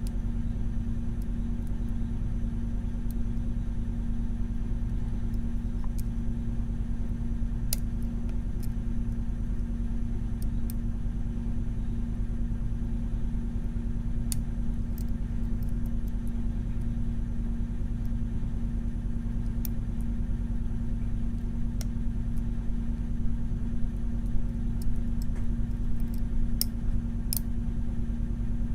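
Steady low hum throughout, with scattered faint clicks of a lock pick working the pins of a Mul-T-Lock Junior pin-in-pin lock, a few more of them near the end.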